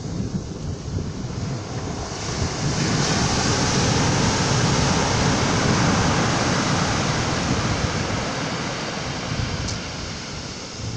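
Surf breaking and washing up a pebble beach: a steady rush of water that swells about two seconds in and eases off near the end.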